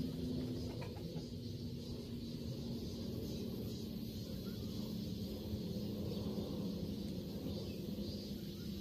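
A steady low hum whose pitch drops slightly just under a second in, over a background haze of outdoor noise.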